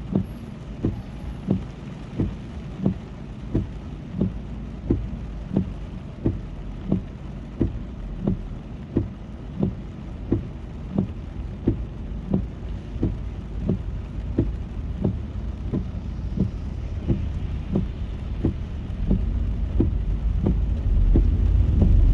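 Windshield wipers sweeping across wet glass, with a low thump at every stroke, about one and a half a second, heard inside the car over steady road noise and rain. The engine and road rumble grows louder near the end.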